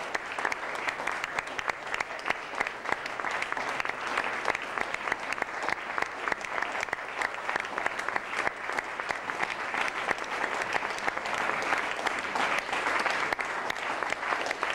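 Audience applauding: many hands clapping without a break, swelling slightly near the end.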